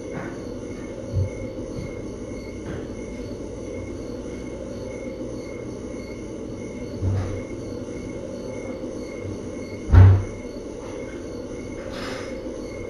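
Steady room noise with faint high pulsing tones, broken by a few dull knocks; the loudest knock comes about ten seconds in.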